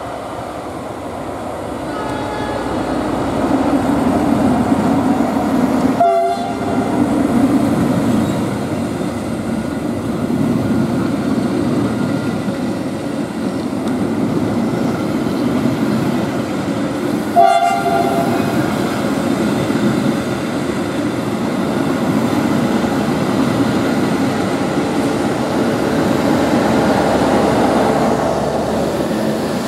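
A CC 300 diesel locomotive and its passenger coaches passing close by, a steady loud rumble of engine and wheels on the rails that builds over the first few seconds. There are two brief sudden breaks, about six and seventeen seconds in.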